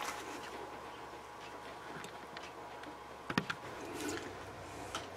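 Quiet room tone with a few light clicks, a sharper pair about three seconds in.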